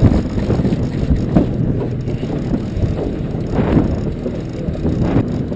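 Wind buffeting the microphone over the party boat's steady low engine hum.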